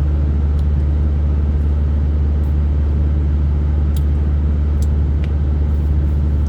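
A steady low rumble at an even level, with a few faint short clicks about two-thirds of the way through.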